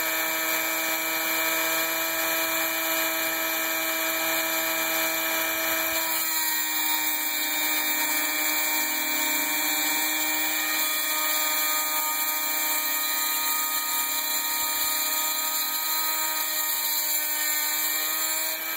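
Dremel rotary tool running a milling bit through an extension shaft on a home-built CNC mill: a steady high whine with a slight change in tone about six seconds in and again near the end.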